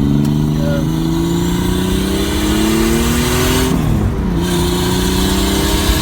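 Chevrolet Cavalier's four-cylinder engine pulling hard under acceleration, its pitch climbing steadily, then dropping with an upshift about four seconds in before climbing again.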